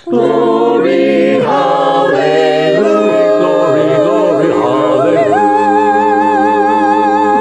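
Small mixed choir singing a cappella through a closing phrase. It settles on a long held final chord with vibrato from about five seconds in.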